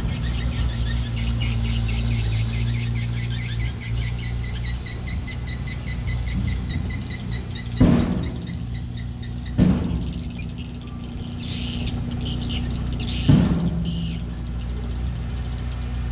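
Diesel engine of a small earthmoving machine running steadily, with a rhythmic high squeaking about four times a second for the first few seconds, then three sharp metallic clanks about eight, nine and a half and thirteen seconds in.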